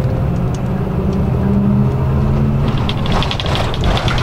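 Highway coach's diesel engine pulling under acceleration, heard from inside the passenger cabin, with its low note rising slightly partway through. From about three seconds in, a fast, even ticking joins it.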